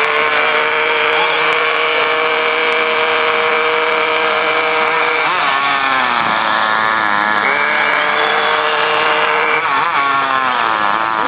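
Small two-stroke engine of a petrol-powered RC car running at high revs with a steady high-pitched whine. The pitch dips and climbs back up twice, about halfway through and near the end, as the throttle is worked.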